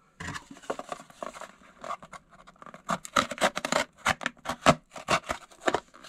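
Small serrated saw blade of a folding multitool sawing through a thin cardboard box. Light scratching of the cardboard comes first, then from about halfway through a quick run of rasping saw strokes, about four a second.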